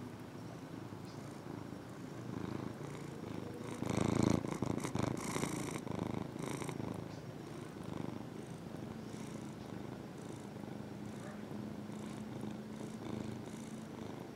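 Domestic ginger cat purring steadily, close to the microphone. About four seconds in, a loud rustling lasts for about two seconds.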